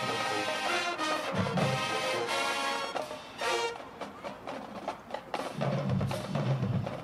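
College marching band playing: the full band with brass for the first three seconds or so, then a thinner stretch of sharp percussion hits, with low brass and drums coming back in near the end.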